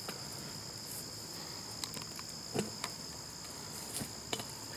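Steady insect chorus, a continuous high buzzing at two pitches, with a few faint knocks about halfway through and near the end.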